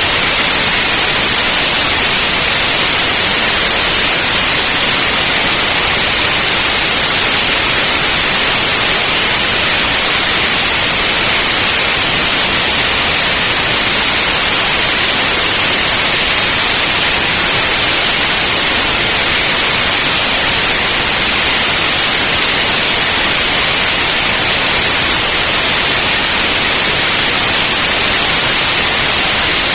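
Steady white noise: an even, unbroken hiss, loud and bright, weighted toward the high frequencies, with no change throughout.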